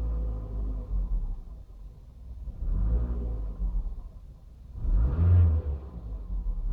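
Mitsubishi Lancer LX engine idling, then blipped twice: a small rev about 3 seconds in and a bigger one about 5 seconds in, each rising and falling back to idle. The owner hears a weird whining noise that goes along with the revving.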